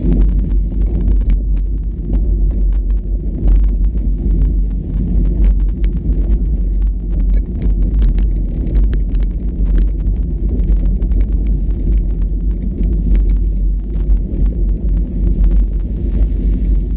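Off-road vehicle driving over a trail: steady low engine and drivetrain noise with frequent knocks and rattles throughout.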